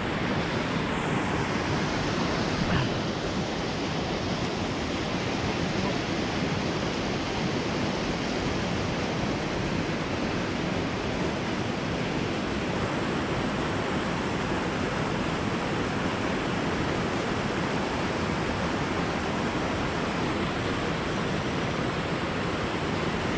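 Waterfall's white water pouring and churning into the lake: a steady, unbroken rush of water.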